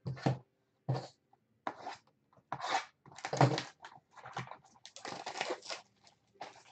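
Plastic shrink wrap being torn and crinkled off a sealed trading-card hobby box, in irregular rustling bursts.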